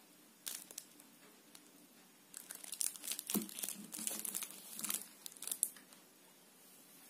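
Crinkling, crackling rustle close to the microphone, in irregular bursts from about half a second in and densest in the middle, with one dull bump about three seconds in.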